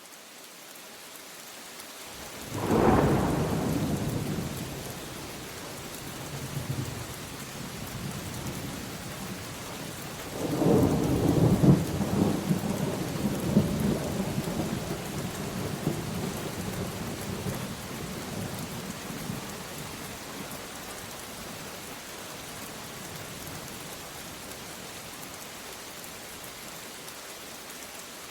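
Steady rain with thunder: a sudden thunderclap about three seconds in that dies away over a couple of seconds, then a longer rolling peal from about ten seconds in that fades out slowly.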